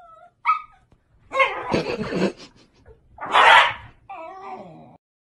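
Two Shiba Inus vocalizing at each other: short high yelps near the start, then harsh noisy barks or growls, the loudest about three and a half seconds in, ending with a wavering drawn-out call.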